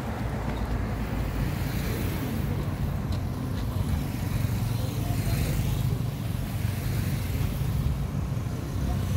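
Steady low rumble of street traffic with motorcycles on the road.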